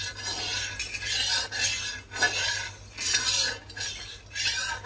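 Flat spatula scraping around the inside of a kadhai (wok) to spread a thin layer of hot oil, in about seven quick back-and-forth strokes.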